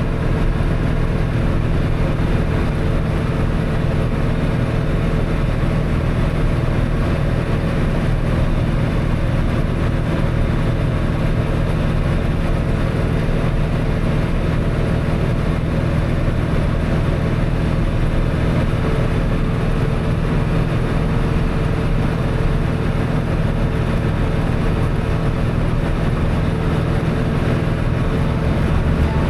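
Tractor engine running steadily under load while pulling a hay baler, an even drone without breaks or changes in speed.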